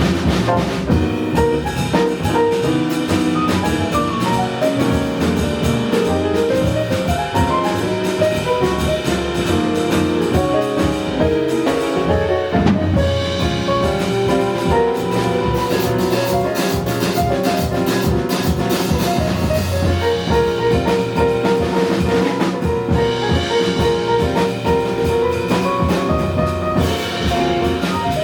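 Live jazz combo playing, with a drum kit keeping time under busy melodic lines.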